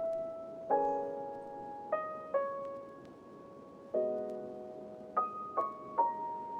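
Soft background piano music: slow single notes and chords struck every second or so, each fading away.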